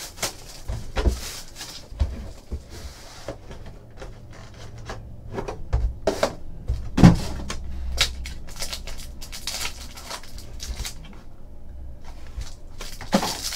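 Cardboard trading-card box (a 2014 Panini Absolute football hobby box) being handled and opened on a table: a run of knocks, scrapes and cardboard rubbing, the loudest knock about seven seconds in.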